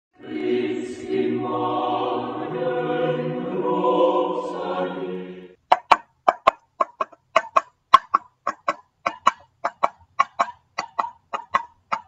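About five seconds of intro music, then two coconut shell halves knocked together to imitate hoofbeats: sharp clops in pairs, about two pairs a second, like a trotting hoofed animal.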